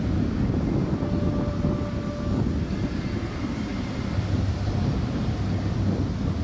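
Four KAI KT-1B Woongbi turboprop trainers flying overhead in formation, their Pratt & Whitney PT6A engines and propellers making a steady, rough drone.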